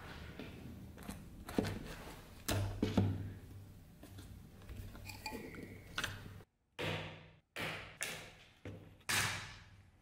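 Steel clamping blocks and a wooden gluing jig being handled: scattered clicks and knocks, then from about seven seconds in a run of sharper knocks, each fading out briefly.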